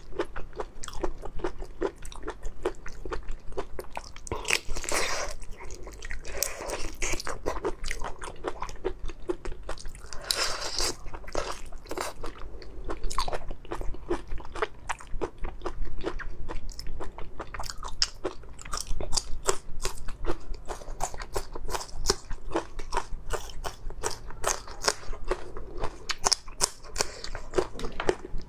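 Close-miked chewing and biting into raw prawns in a spicy marinade: a dense run of wet crunches and sharp clicking mouth sounds, with a few longer noisy stretches about five, six and ten seconds in.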